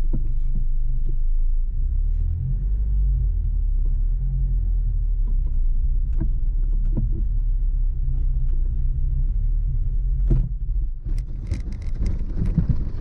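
Land Rover Freelander 2 diesel engine pulling steadily at low speed during an off-road climb, heard from inside the cabin as a low drone. Scattered knocks from the car working over rough ground, a sharper knock about ten seconds in, then a clattering, rustling stretch near the end.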